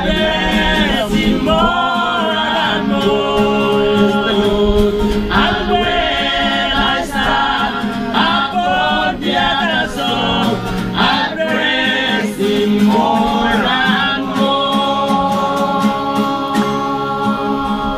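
A church stringband singing a gospel song in group harmony with long held notes, over strummed string accompaniment.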